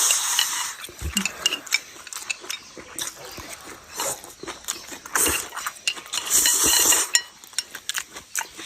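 A person eating noisily: chewing and slurping in short bursts, with small clinks of chopsticks against a bowl, and two louder slurps, one at the start and one about six seconds in.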